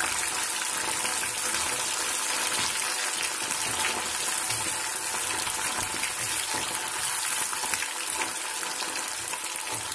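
Boneless chicken pieces deep-frying in hot oil in a kadai: a steady, dense sizzle with fine crackling, the pieces stirred with a metal spoon.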